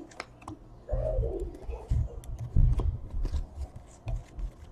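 Trading cards being handled and flipped through by hand: scattered light clicks and card-on-card rustle, with a few dull low thumps from handling on the table.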